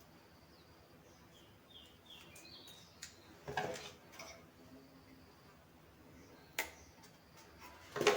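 Quiet room tone with faint handling noises: a brief rustle about three and a half seconds in and a single sharp click later. A few short, high, falling chirps from birds are heard faintly about two seconds in.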